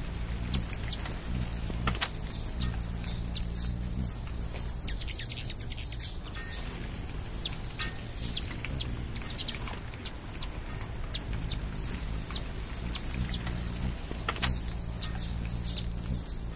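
Natural ambience: a steady high insect trill, like crickets, that swells and fades, with short bird chirps over it and a low hum underneath.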